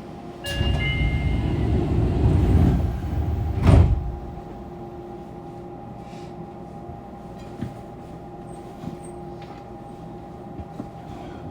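Passenger sliding doors of a Fukuoka City Subway 2000-series car closing: a rumbling slide with a few high tones for about three seconds, ending in a sharp thud as the doors shut. After that comes the steady, quieter hum of the stopped train's equipment.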